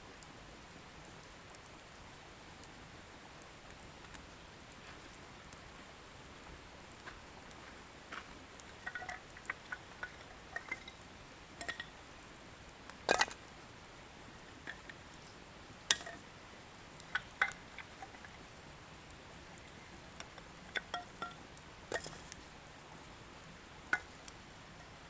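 Wood bonfire crackling: scattered sharp pops and snaps of burning firewood over a faint steady hiss, sparse at first and more frequent from about eight seconds in.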